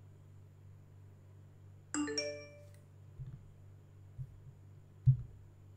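macOS Installer's completion chime: a short bright bell-like chime of several ringing tones about two seconds in, sounding as the installation finishes. Three soft low thumps follow, the last the loudest, over a steady low hum.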